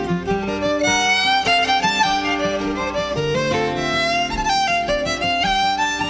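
Irish traditional fiddle music: a solo fiddle playing a jig in a quick run of notes, over lower held notes underneath.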